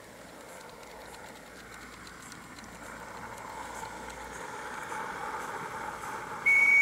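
Gas-fired Roundhouse 16mm live-steam model locomotive hissing steam from its fully open drain cocks, the hiss growing louder as it approaches. Near the end comes one short, loud blast on its whistle.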